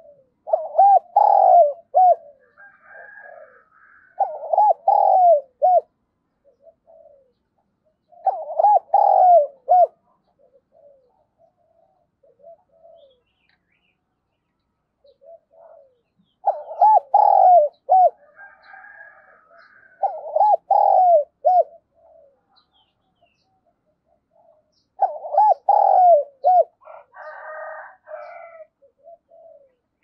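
Spotted dove cooing, the calling coo of a caged decoy bird: three phrases about four seconds apart, a pause of several seconds, then three more. Fainter, higher-pitched sounds come between the phrases.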